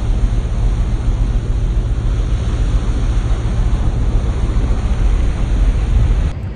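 Churning wake water rushing alongside a moving vessel, a loud steady rush with a deep rumble underneath, cutting off abruptly near the end.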